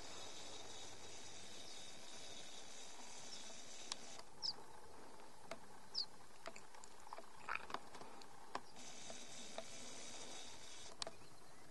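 Faint, quiet outdoor ambience: a steady soft hiss with scattered small clicks and a few brief high chirps, about four and six seconds in.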